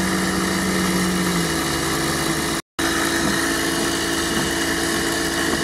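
Lada Niva's engine running at low speed, heard inside the cab, with the steady hum of an onboard air compressor that stops about a second and a half in. A brief dropout near the middle.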